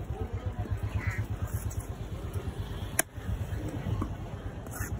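A heavy fish-cutting knife chops once into a wooden chopping block about three seconds in, a single sharp knock, over a steady low rumble and faint market voices.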